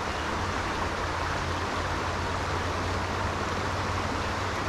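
Steady rush of a shallow, rocky mountain creek flowing over stones, an even hiss of water at a constant level.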